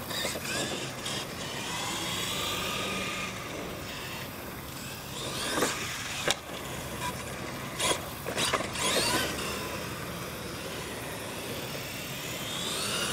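Radio-controlled monster truck's motor and gears whining, rising and falling in pitch as it speeds up and slows down. Several sharp knocks come in the middle as it hits the ramps and lands from a jump.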